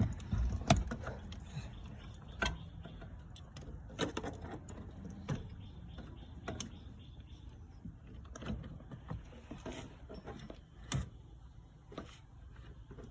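Irregular mechanical clicks and knocks, about one every second or two, over a low steady hum: the sounds of hand work on a car's steering column.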